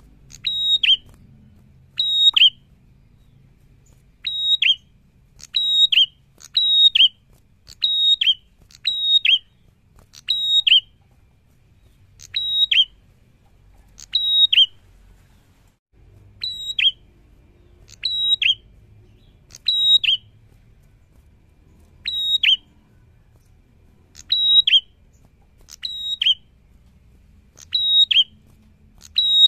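A caged prenjak, a rufous-headed tailorbird, calling loudly: sharp, high, short calls, each a quick double note dropping in pitch, repeated about once a second with a few pauses of two to three seconds.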